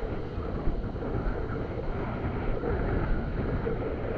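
Wind buffeting the microphone over ocean surf breaking on the beach: a steady rushing noise with a heavy low rumble.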